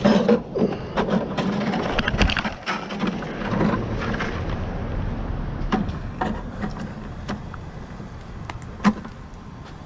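A busy run of knocks, clanks and rattles from things being handled for the first four seconds or so, then a few scattered sharp clicks over a low steady background.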